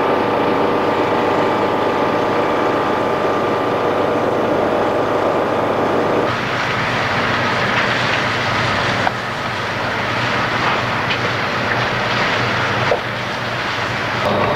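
Fire apparatus engines running steadily with a constant hum. After a cut about six seconds in, a louder, wider rushing noise with scattered sharp cracks follows.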